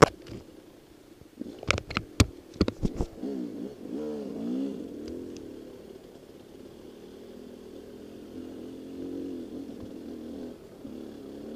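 Dirt bike engine revving up and down, then running more steadily. Several sharp knocks in the first three seconds come from the bike jolting over the rough trail.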